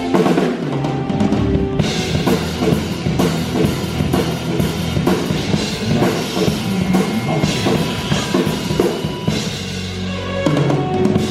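A live band playing, with a drum kit keeping a steady beat under the instruments.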